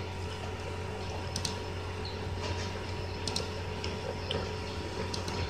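Quiet room tone: a steady low hum with a few faint clicks and ticks scattered through it.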